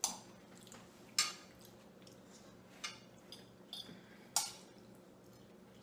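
Forks clinking and scraping against dinner plates while eating, about five sharp clinks spread a second or so apart.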